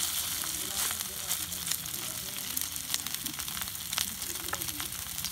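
Raw beef burger patty sizzling in a hot pan over a wood fire: a steady hiss with frequent small pops.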